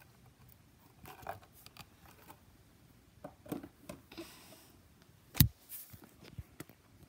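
Handling noise of small objects being moved by hand: scattered light clicks and taps. About five seconds in comes one sharp, loud knock as the camera is bumped and tips.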